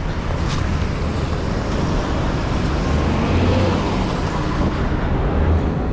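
Street traffic: motor vehicle engines running and passing close by, a steady low rumble with road noise.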